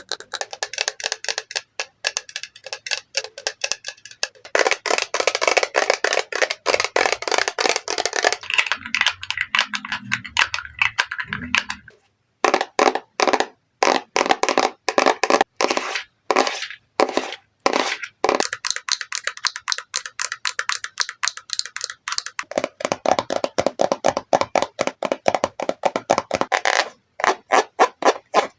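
Rapid tapping on makeup containers and packaging, many quick taps a second. The tone of the taps changes every few seconds as different items are tapped, with a stretch of slower, separated taps about halfway through.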